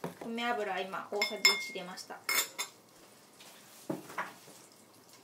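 Metal spoon and dishes clinking: several sharp clinks with brief ringing between about one and three seconds in, then a couple of duller knocks near four seconds.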